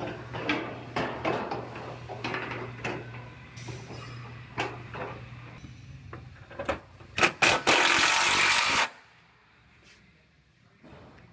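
Knocks and clatter of sheet-metal body panels and hand tools being handled. About seven seconds in, a cordless drill/driver gives two short bursts, then one steady run of about a second and a half at the quarter panel's sheet metal, which stops abruptly.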